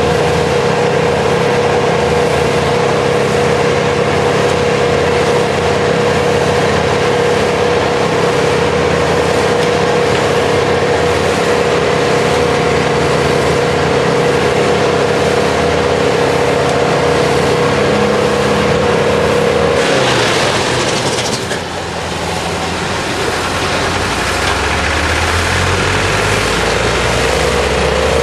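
Rayco 12-inch wood chipper running at speed with a steady whine. About twenty seconds in, a short burst of grinding as the oversized tree feeds in pulls the engine's pitch down. It then climbs back up over the last few seconds without stalling, the load carried through the Logan bell housing PTO clutch.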